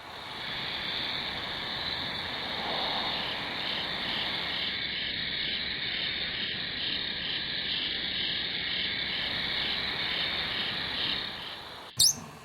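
A steady, high-pitched chirring noise with a pulsing beat of about three times a second. It cuts off abruptly near the end and is followed by a short, sharp sound.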